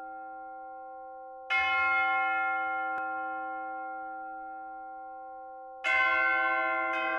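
Bells struck one at a time in a slow tune, each strike ringing on and slowly fading: one about a second and a half in, then two more close together near the end.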